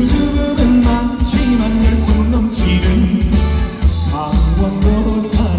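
Male singer singing a Korean trot song live over a backing track with a steady bass beat, amplified through the stage sound system.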